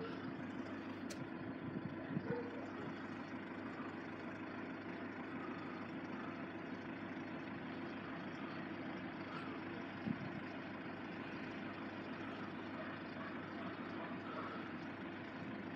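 A distant engine idling steadily as a low, even drone, with a faint click about a second in and a short thump about ten seconds in.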